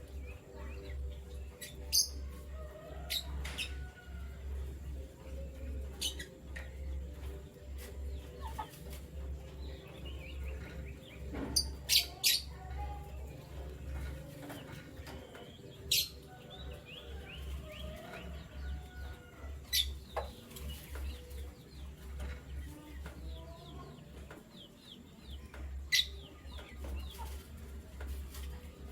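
Canaries chirping in short, scattered calls, with several sharp high notes standing out at irregular intervals, over a steady low hum.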